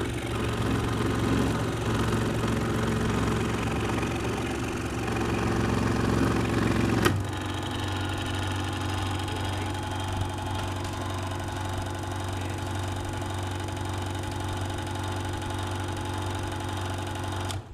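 Craftsman scroll saw running with a steady motor hum, its blade cutting through a piece of wood for the first seven seconds or so. A sharp click comes about seven seconds in, after which the saw runs on without load until it cuts off abruptly near the end.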